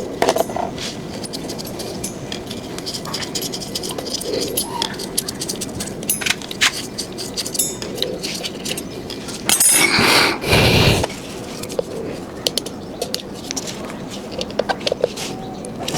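Handling noises from working on a scooter wheel: scattered clicks and light metallic clinks, with a loud scraping, rustling burst about ten seconds in that lasts around a second and a half.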